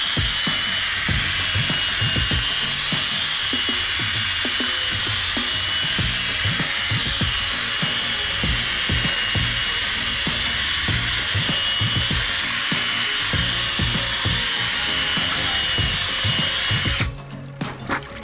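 Electric drill spinning an 800-grit sanding disc against a plastic headlight lens: a steady whirring with a high whine that stops suddenly about 17 seconds in, followed by a few clicks.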